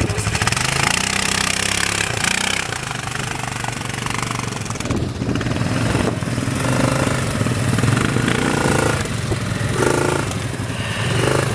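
ATV (quad bike) engine running steadily off-road, revving up briefly about a second in.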